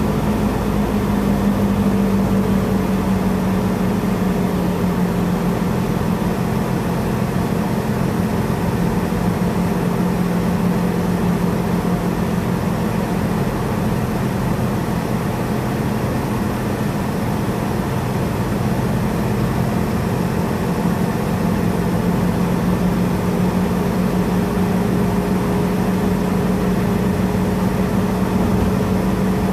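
A car driving at a steady speed, heard from inside the cabin: a steady low engine hum that dips slightly in pitch in the middle and rises a little near the end, over continuous tyre and road noise.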